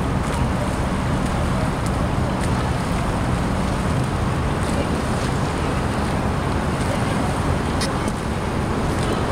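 Motorboat engine running steadily under way, with wind noise on the microphone and water rushing past the hull.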